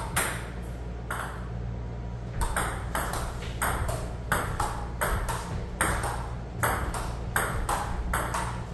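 Table tennis rally: the ball clicking off paddles and bouncing on the table. There are a few hits at first, then a steady back-and-forth of about three clicks a second from a couple of seconds in.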